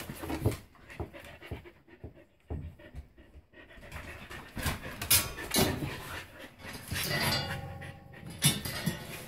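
A Carolina Dog panting and sniffing as it searches among cardboard boxes and bins for a rat, in short irregular bursts mixed with scattered knocks and rustles.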